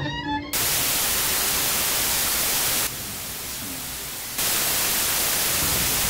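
A snatch of music cuts off about half a second in and a hiss of white-noise static takes over, turning softer and duller for about a second and a half midway before coming back.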